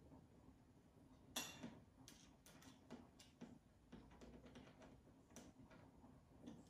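Faint, irregular clicks and light taps of small hand-held hardware being worked by hand. One sharper click comes about a second and a half in.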